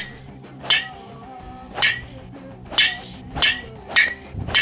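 Six sharp cracks of a golf driver striking a ball off the tee, spaced half a second to a second apart, over background music.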